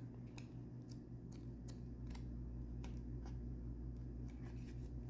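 Light, irregular clicks and taps of paper and card being handled, over a steady low hum.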